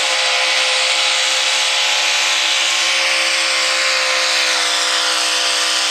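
V8 hot rod pulling tractor's engine running hard at steady revs, pulling the weight-transfer sled under full load.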